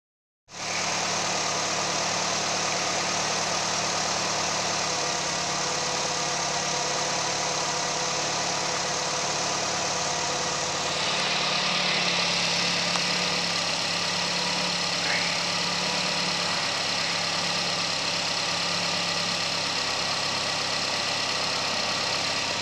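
2013 Nissan X-Trail's 2.0-litre four-cylinder petrol engine idling steadily.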